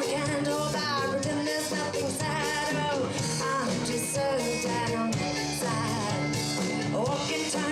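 Live band music: a woman singing over keyboard and electric bass, with backing vocals.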